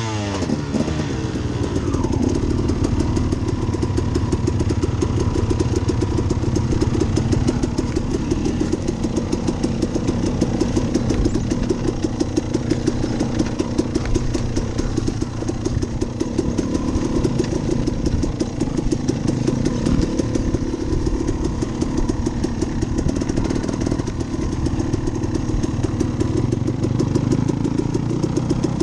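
Two-stroke dirt bike engine running under load as the bike rides a trail, the note holding fairly steady with small rises and falls in revs.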